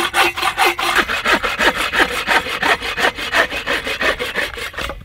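Hand frame saw cutting through a dry ash log in quick, even back-and-forth strokes, stopping near the end.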